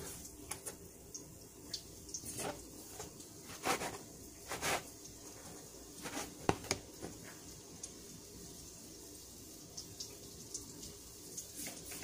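Dough frying in hot oil in a pan on the gas stove: a faint steady sizzle with scattered small crackles. Over it come a few louder short scrapes and taps of a plastic dough scraper cutting dough on a silicone mat, mostly around the middle.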